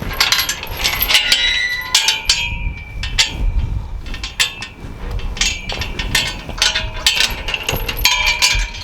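Irregular metal clanking and rattling: many sharp clinks, some with a brief ring, over a low rumble.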